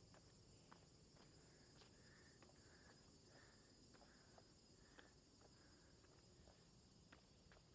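Faint forest ambience: a steady high-pitched insect chorus, with scattered soft ticks of footsteps on a paved path. In the middle comes a short run of soft repeated chirps, about two a second.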